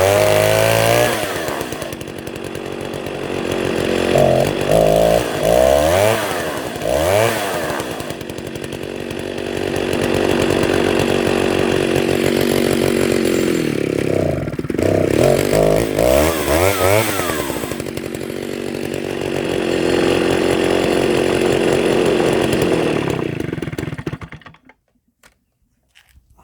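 Vintage Stihl 08S two-stroke chainsaw running loud, revved up and down in quick blips in two spells with steadier running between, then cutting off about 24 seconds in.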